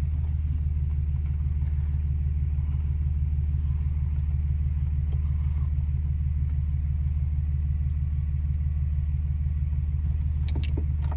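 Diesel engine idling steadily, a low, evenly pulsing rumble.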